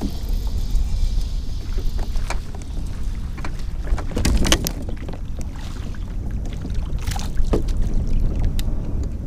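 Wind rumbling steadily on the microphone of a camera on a kayak on choppy water, with scattered clicks and knocks, the loudest a little past four seconds in.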